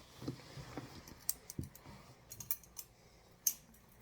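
Kershaw Moonsault knife being handled: a string of light, irregular clicks and taps.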